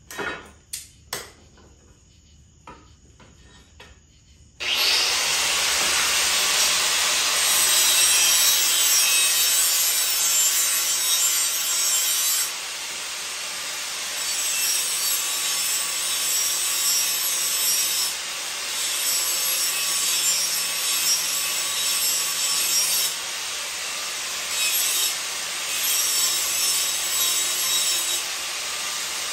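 A few handling clicks, then about five seconds in an electric angle grinder starts up sharply and grinds the steel edge of a worn, nicked lawn mower blade. Its level drops and comes back several times as the disc works along the edge.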